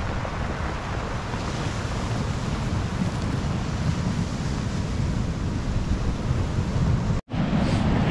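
Wind buffeting the microphone, with a heavy low rumble, over surf breaking on a pebble beach. The sound drops out for a split second near the end, then resumes.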